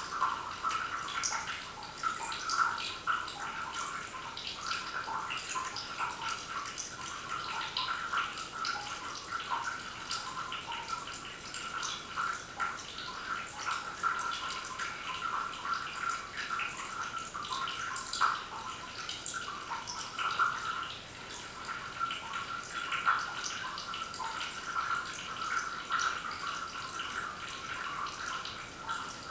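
Water dripping and trickling in irregular small drops, over a steady high held tone from the installation's self-playing reed instruments that swells and fades slightly.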